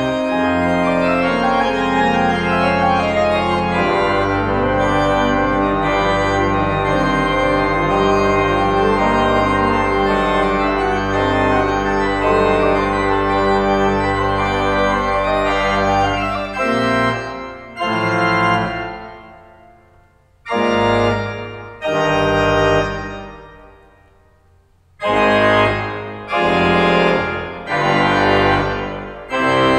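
Steiner-Reck pipe organ playing: a full, sustained texture over a pedal bass, which about halfway through breaks into separate chords with pauses between them, each chord's sound dying away in the room's reverberation before the next.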